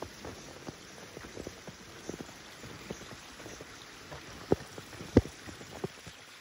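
Footsteps crunching in fresh snow, irregular steps with two louder crunches about two-thirds of the way through.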